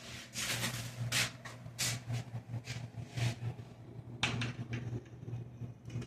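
Electric razor running with a steady low buzz, with repeated scratchy rasps over it, as it is tried after repair. It starts at once and cuts off near the end.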